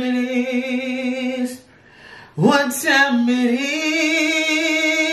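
A man singing unaccompanied in long held notes with vibrato. One note ends about a second and a half in, and after a short break he slides up into a higher note that he holds.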